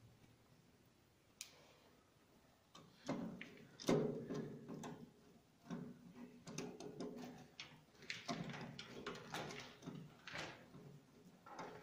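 Scattered clicks, taps and scrapes of a screwdriver turning the terminal screws of plastic miniature circuit breakers in an electrical distribution panel, with one sharper knock about four seconds in.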